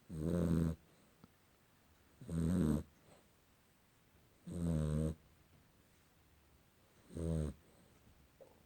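A sleeping pet snoring: four snores, each about half a second long and spaced roughly two and a half seconds apart, with quiet breathing between them.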